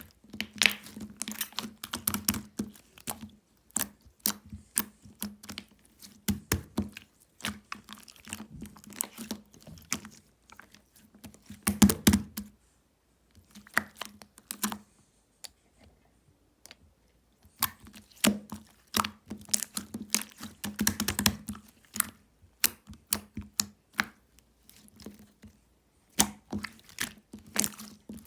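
Rapid, irregular clicking and tapping in bursts with short pauses, over a faint steady low hum.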